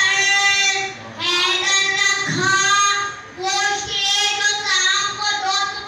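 A boy singing a chanted recitation into a handheld microphone, holding long notes, with two short breaks for breath.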